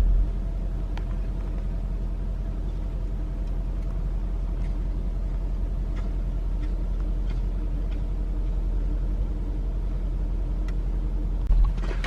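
A car's engine running steadily, a low rumble, while the car sits stuck in deep snow. A short louder bump near the end.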